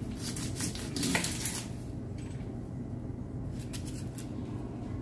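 Kitchen utensils and dishes clattering and scraping, with a cluster of short noises in the first second and a half and a few more near the end.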